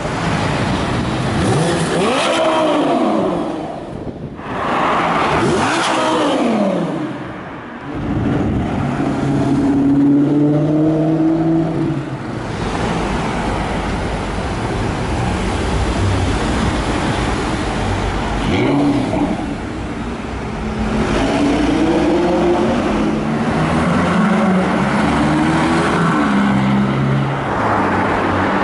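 Performance-car engines revving and accelerating hard along a street. In the first few seconds two fast pass-bys drop in pitch as they go by. Later, engines pull away with revs climbing in steps through the gears.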